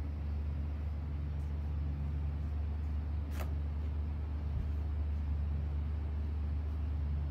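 Steady low hum, with one sharp click about three and a half seconds in.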